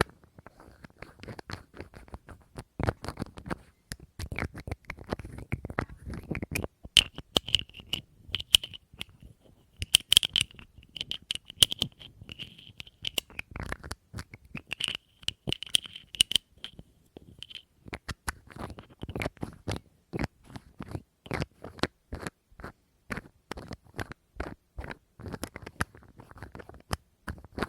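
Rapid, irregular tapping and scratching on small objects, done by hand for ASMR. Through the middle stretch the taps bring out a high ringing tone from the object being struck.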